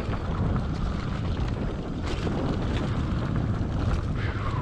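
Wind rushing over a helmet camera's microphone as a mountain bike descends a rough trail at speed, with the rumble and rattle of tyres and frame over dirt. A brief falling squeal comes near the end.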